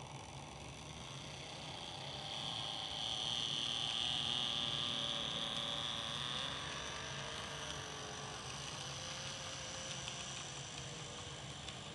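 KATO N-gauge model 683-series Thunderbird train running past on the track, its small electric motor giving a high whine over the rolling noise. It grows louder about two seconds in, is loudest for a few seconds, then fades gradually.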